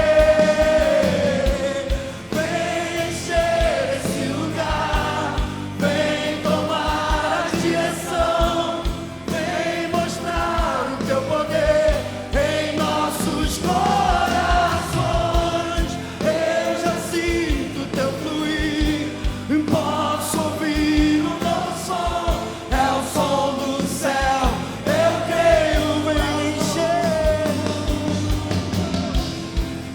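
Christian worship song: voices singing a drawn-out melody over a band with a drum beat.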